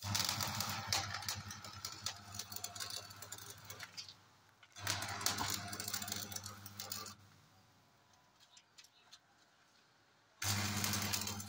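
A mains-powered tool working the steel angle-iron frame: a steady low hum with dense crackling over it, in three bursts that start and stop abruptly, the second ending about seven seconds in and the third starting near the end.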